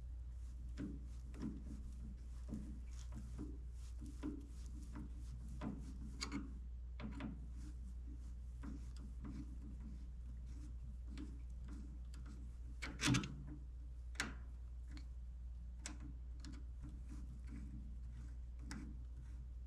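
Scattered light clicks and clinks of hand tools working on engine fittings, with one louder knock about thirteen seconds in, over a steady low hum.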